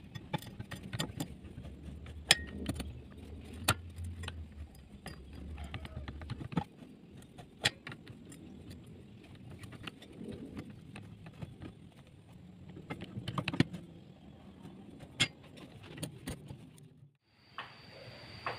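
Homemade automatic saw-sharpening machine at work: irregular sharp metallic clicks and clinks from the feed arm and grinding wheel on the saw blade's teeth, over a low motor hum that drops away after about six seconds.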